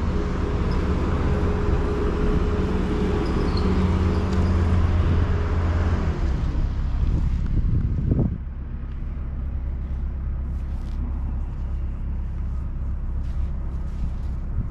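Heavy earthmoving machine's diesel engine running steadily and loudly, then dropping to a quieter, lower note about eight seconds in.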